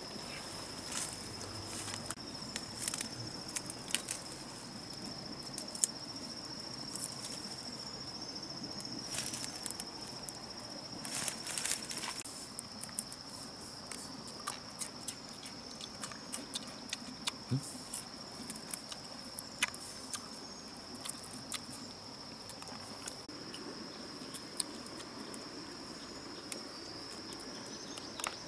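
A steady high trill of insects runs throughout, over scattered short crackles and snaps of leaves and twigs being handled and brushed through in the undergrowth.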